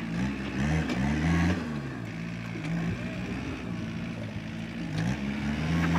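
Kubota tractor's diesel engine running under load while it pulls a disc plough through dry soil. The engine's pitch dips and recovers a few times in the first second and a half and again about five seconds in.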